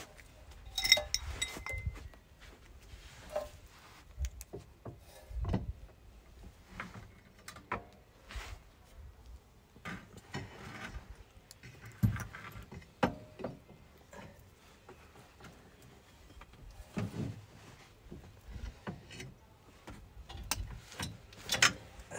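Steel suspension parts and hand tools being handled: irregular clinks, knocks and clanks, with a short metallic ring about a second in.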